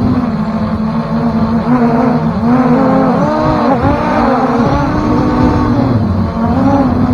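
A motor running loud and continuous, its pitch repeatedly swinging up and down.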